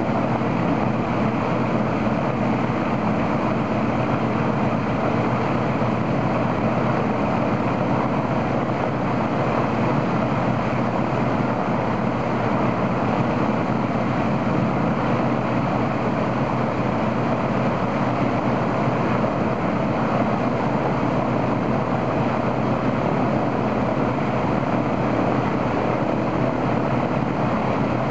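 Ilyushin Il-14's right engine, a Shvetsov ASh-82T fourteen-cylinder twin-row radial, running steadily on the ground with its propeller turning: a ground run-up to check the engine after an oil cooler replacement.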